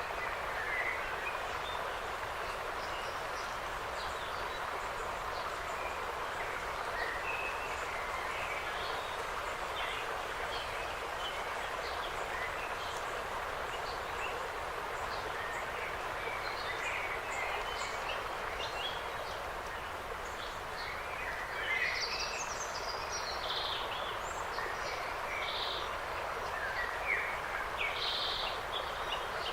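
Forest ambience: small birds chirping and calling over a steady background hiss of wind in the trees. The calls get busier about two-thirds of the way through and again near the end.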